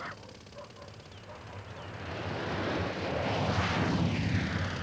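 An aircraft flying low overhead, growing louder from about halfway in and passing over near the end with a falling pitch.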